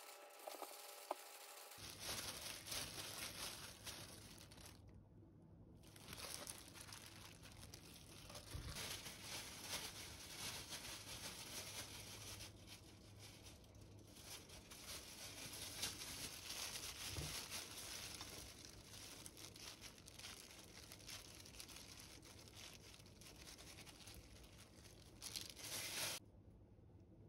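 Faint, steady crinkling and tearing: a plastic-gloved hand pressing rice balls, then sheets of dried laver torn and crumbled by hand. It stops abruptly near the end.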